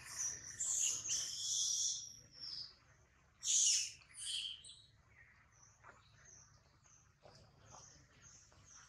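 High-pitched animal chirps and squeals: a loud run in the first two seconds, two more loud calls about three and a half and four seconds in, then fainter, shorter chirps.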